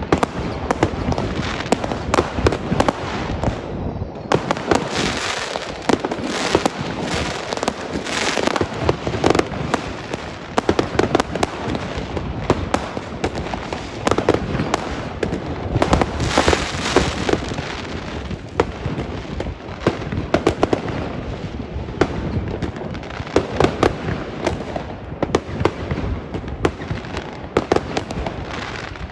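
A consumer fireworks battery (cake) firing a rapid, unbroken string of shots that burst into crackling stars. Dense pops and bangs come with stretches of hissing crackle.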